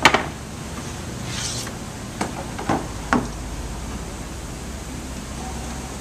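Wooden fixture blocks knocking against the case clamp's bed as they are set down and slid into place: four sharp knocks, the loudest first, and a brief scrape about a second and a half in, over a steady low hum.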